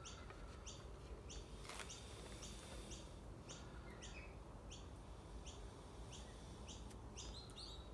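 A bird chirping over and over in short, high notes, about two a second, over faint background hiss.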